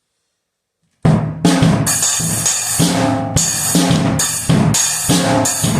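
Drum kit beat played with a single drumstick: bass drum, snare and crashing cymbals in a steady groove, starting about a second in.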